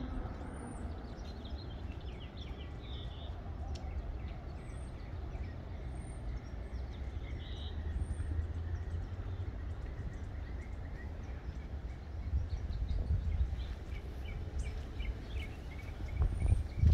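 Outdoor garden ambience: a low, uneven rumble that swells about twelve seconds in and again near the end, with faint, short, high bird chirps every second or two.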